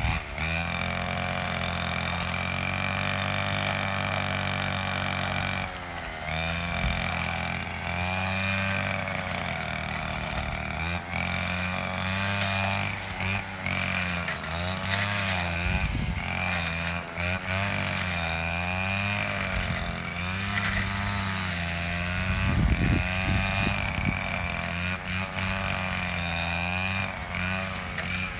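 Petrol brush cutter engine running at high speed while cutting thick grass and vines. Its pitch dips and recovers again and again as the blade bites into the growth, with a brief drop about six seconds in.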